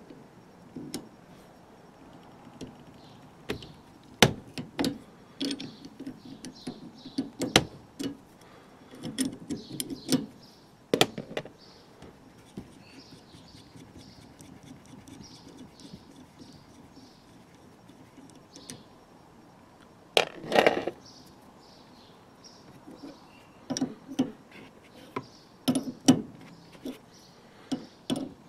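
Steel 14 mm combination spanners clinking and tapping against the locked top nuts on a rear shock absorber's piston rod as the nuts are broken loose and the top nut is taken off. Irregular metallic clicks and knocks, sparser in the middle, with a louder cluster about twenty seconds in.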